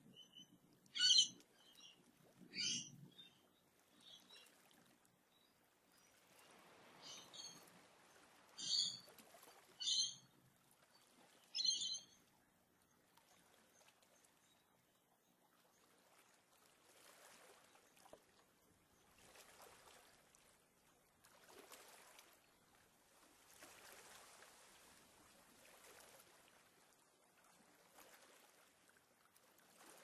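Wild birds calling at dawn: about six short, loud, high-pitched calls in the first twelve seconds. After that only a faint, uneven wash of water remains.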